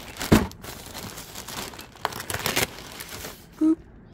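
Plastic poly mailer crinkling and rustling as it is handled, with a loud crinkle right at the start and another run of crinkles about two seconds in. A brief squeak-like tone sounds near the end.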